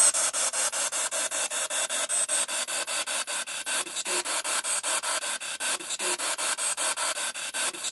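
A ghost-hunting spirit box sweeping through radio stations, giving out choppy static that pulses about six times a second. A fragment about six seconds in is taken by the investigators for a spirit voice saying "You too".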